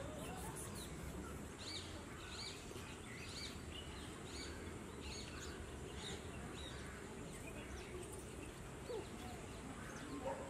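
A small bird repeating a short, high chirp about once a second for several seconds, over a steady low background rumble.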